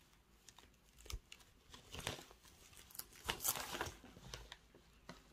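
Faint rustling of a winter jacket's fabric being handled, in several short bursts, the loudest about three and a half seconds in.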